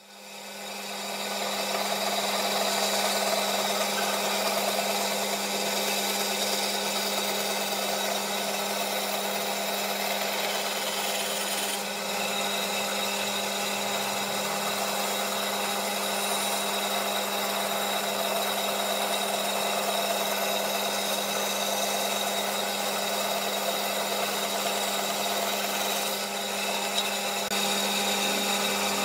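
Band saw running with a steady hum, its blade cutting through a wooden board fed by hand. The sound swells in over the first second and then holds steady.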